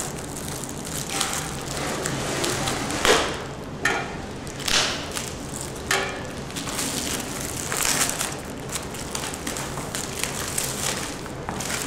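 Clear plastic wrapping crinkling and rustling as hands peel and tear it off a boxed item, in a string of short crackly rustles with louder ones every second or so.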